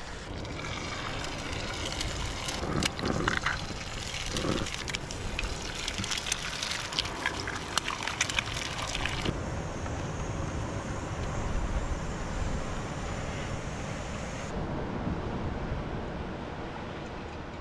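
Eggs and bacon frying in a pan on a gas camp stove, sizzling and crackling with many sharp pops, over steady wind noise; the sound changes abruptly twice.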